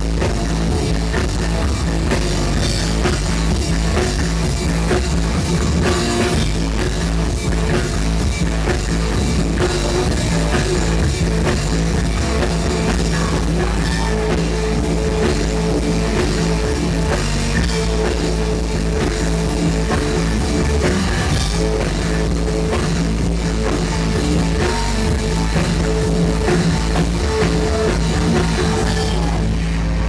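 Live rock band playing loud: electric guitar, bass guitar and drum kit, steady and dense throughout.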